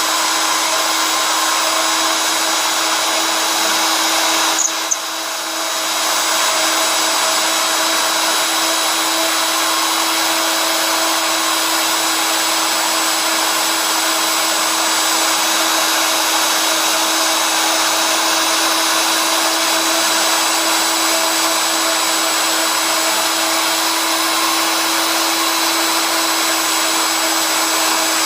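CNC machine's spindle motor running steadily with a constant whine, briefly dipping about five seconds in.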